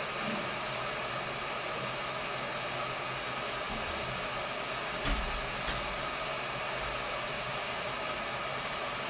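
Hot-air rework station blowing steadily at 250 °C, reflowing the solder under a phone charging-port connector. About five seconds in there is a light tap, then a faint tick.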